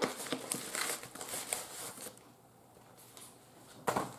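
Gold metallic bubble mailer crinkling and crackling as it is handled and torn open, busy for about two seconds, then quieter, with one sharp loud crackle near the end.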